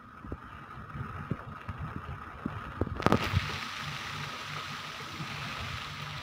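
Low rumble of an idling vehicle engine with scattered knocks. A steady hiss of wind on the microphone starts suddenly about three seconds in.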